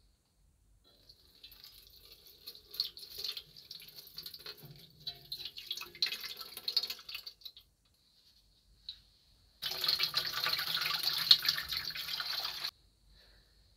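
Liquid poured from a plastic bottle splashes and trickles unevenly into a metal basin for several seconds. About ten seconds in, a steady stream pours into the basin for about three seconds, then cuts off suddenly.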